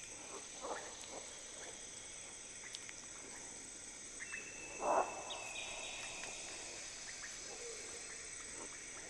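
Tropical forest ambience: a steady high-pitched insect drone, with a held tone joining it about four seconds in, scattered faint clicks, and one brief louder sound about five seconds in.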